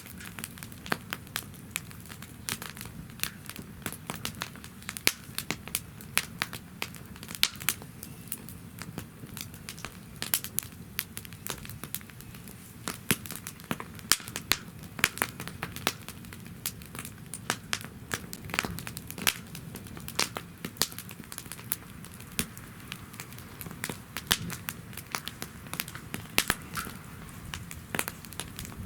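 Wood fire burning in a fire pit, crackling with many sharp irregular pops over a low steady rumble of flame.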